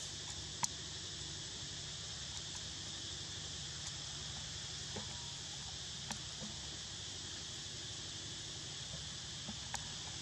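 Steady, unbroken chorus of insects in the forest, a high hiss that does not change, with a few faint ticks.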